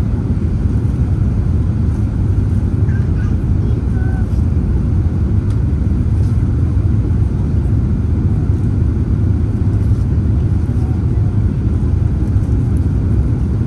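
Steady low rumble of an Airbus A380-842's four Rolls-Royce Trent 900 engines and the rushing airflow, heard inside the cabin as the jet climbs after takeoff.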